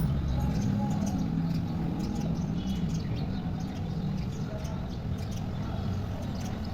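Sparrows chirping now and then in short, faint calls over a steady low rumble.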